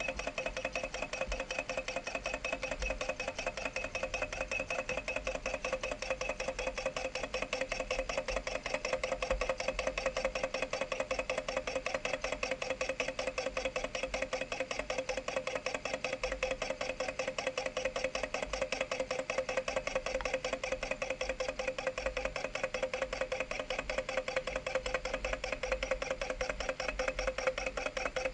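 Low-temperature Stirling engine running, its flywheel spinning, with a steady, fast-repeating mechanical pulse and a steady hum.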